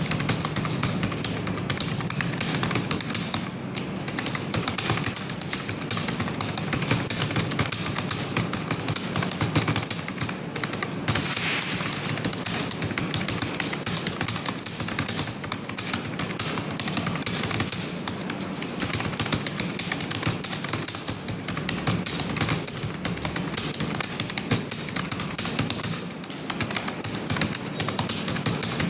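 Fast, continuous typing on a computer keyboard: a rapid, unbroken patter of keystrokes.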